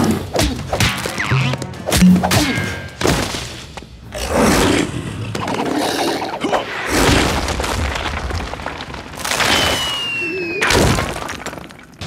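Cartoon fight sound effects, a fast run of hits, crashes and smashes, over action music, with a short falling whistle late on.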